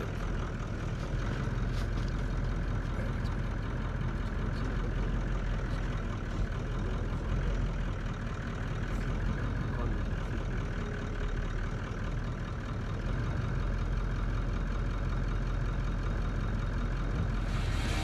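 Vehicle engine idling steadily, a low even hum heard from inside the vehicle.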